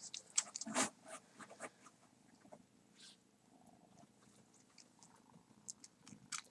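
A grey tabby kitten nuzzling and sucking at a person's face, making a run of short wet clicks and smacks. They are thickest in the first two seconds, with a few more near the end.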